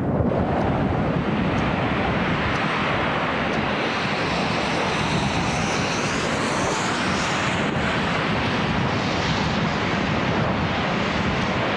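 Strong wind roaring steadily, a dense, unbroken rush of noise with no pitch to it.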